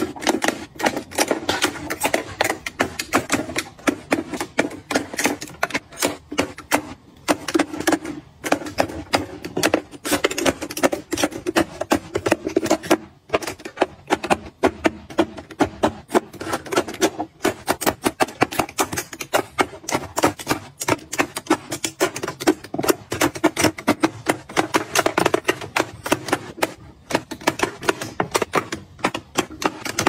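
Lipstick tubes being set one after another into the slots of a clear acrylic grid organizer: a quick, uneven run of light clicks and taps, several a second.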